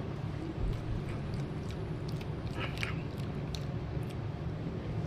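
A person chewing food close to the microphone, with scattered short mouth clicks and smacks. A steady low rumble runs underneath.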